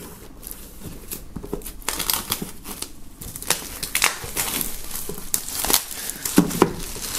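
Clear plastic shrink-wrap film being slit along a box edge with a knife, then pulled off and crumpled by hand: a run of irregular crinkling and crackling.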